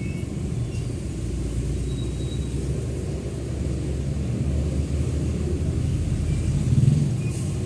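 Steady low outdoor rumble, with a few faint short high chirps and a brief louder swell near the end.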